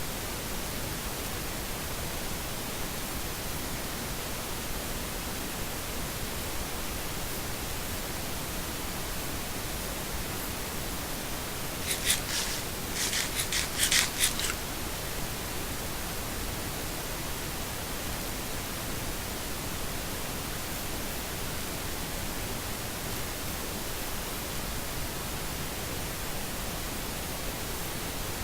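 Steady, even hiss of noise, broken about halfway through by a short cluster of sharp, high clicks.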